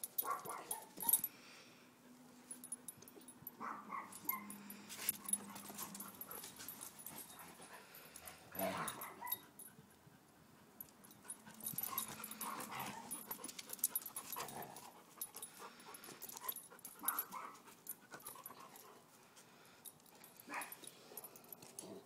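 Dogs whimpering and yipping in scattered short calls, with sharp clicks and knocks in between.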